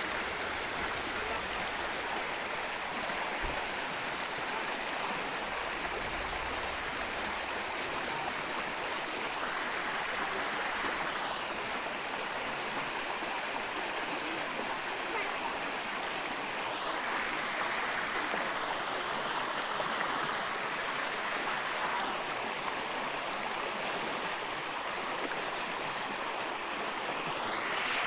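Fast stream water rushing steadily over rocks in a natural waterfall cascade.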